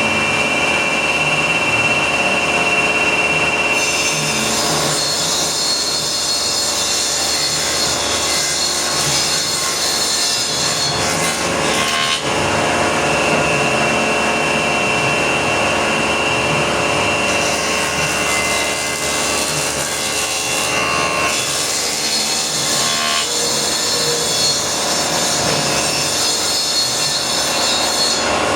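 Woodworking planer running with a steady whine, while a harsher hiss of wood being cut comes and goes several times as boards pass through.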